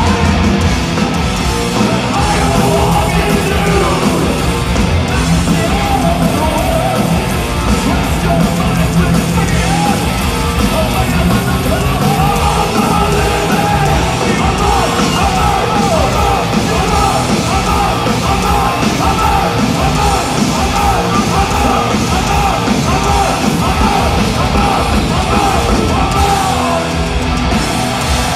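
Thrash metal band playing live at full volume: distorted electric guitars, bass and pounding drums with yelled vocals, recorded on a phone from the crowd.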